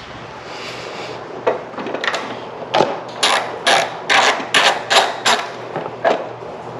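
A wrench working a 10 mm nut off a car's upper fender support: a run of sharp clicks, about two a second, thickest in the middle.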